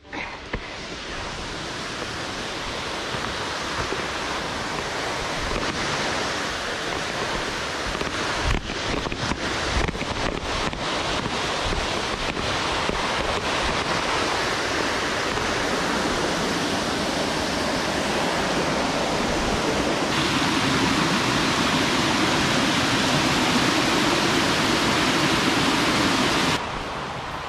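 Waterfall: steady rushing of falling water, with a few short crackles on the microphone. The sound changes abruptly about twenty seconds in and drops off suddenly shortly before the end, as the shots change.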